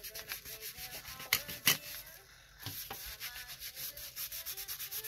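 A paint-loaded baby wipe dabbed and rubbed quickly over the paper of a padded mailer envelope, a fast run of scratchy rubbing strokes. Two sharper taps come about one and a half seconds in.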